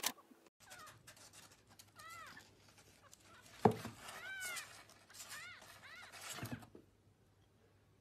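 Young kittens mewing: a run of short, high mews that rise and fall in pitch. A sharp thump about halfway through and a softer one near the end.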